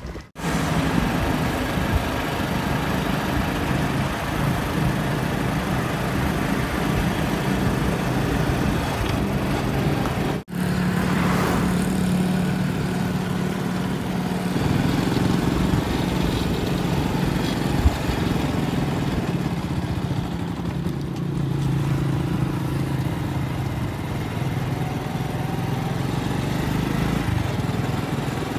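Motorcycle engine running steadily while being ridden, with a broad rush of noise over it; the sound drops out briefly twice, near the start and about ten seconds in.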